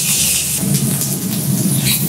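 Food sizzling on a steel teppanyaki griddle, a steady hiss over a low, even rumble.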